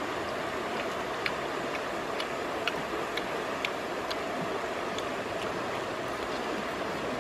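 Steady rush of a shallow stream running over stones, with scattered light clicks as grilled rat meat is picked off a bamboo tube and eaten.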